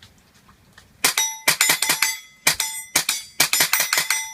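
Rapid semi-automatic fire from a .22 rifle with a Gemtech Mist-22 integrally suppressed barrel, starting about a second in: over a dozen quick shots, each suppressed report nearly covered by the clang and ring of the steel plate being hit.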